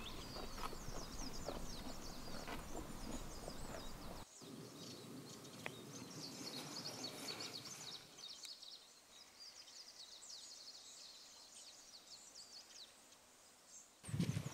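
Rural outdoor ambience with many small birds chirping in quick, high, downward-sweeping calls over a faint background hiss. The background changes abruptly about four seconds in and again about eight seconds in, and the birdsong thins out over the later part.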